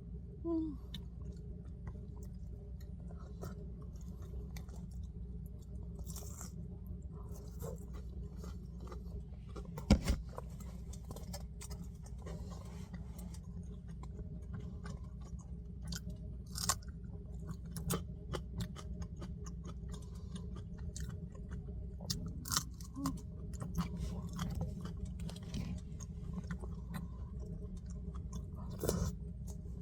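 Scattered small chewing and crunching clicks over a steady low hum, with one sharp knock about ten seconds in.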